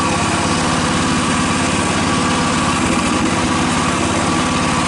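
Typhon Terror One mini excavator's small engine running at a steady speed, with an even, rapid pulse and no change in pitch.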